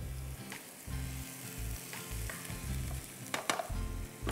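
Chopped onions and whole spices (bay leaf, green cardamom, cloves) sizzling in hot oil and ghee in frying pans, with a spatula stirring. A few sharp clicks of the spatula come about three and a half seconds in.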